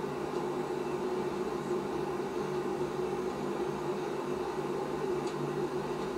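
A steady low hum with a hiss under it, unchanging throughout, with no distinct knocks or movements.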